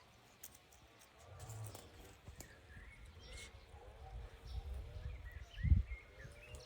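Faint animal calls, short chirps, over a low rumble, with one dull thump near the end.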